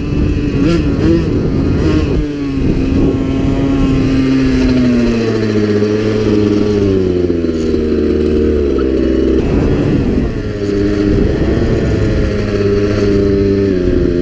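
2001 Suzuki RM80's small two-stroke single-cylinder engine running under way, its pitch rising and falling with the throttle. The engine note sags slowly through the middle, breaks off, then picks up again about ten seconds in and holds steady.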